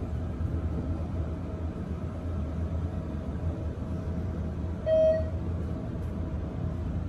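ThyssenKrupp elevator car travelling down, a steady low rumble, with one short electronic beep about five seconds in as the car passes a floor.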